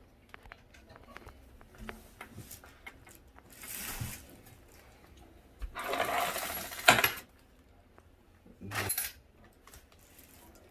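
Small hardware being handled at the toilet's floor bolts: a few short bouts of rustling and clinking, the longest about two-thirds of the way through, ending in a sharp click.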